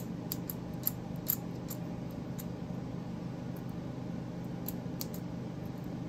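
Light metallic clicks and snicks of a stainless-steel, magnet-and-spring Desert Eagle fidget toy being worked by hand, many in the first couple of seconds and a few scattered later, over a steady low hum.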